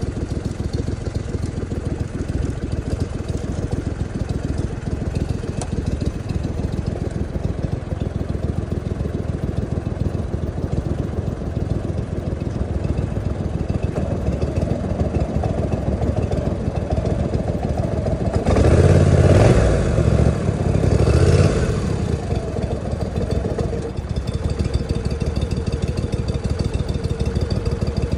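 Outboard motor running steadily as a small aluminium fishing boat moves across the water. It swells louder for about three seconds about two-thirds of the way through.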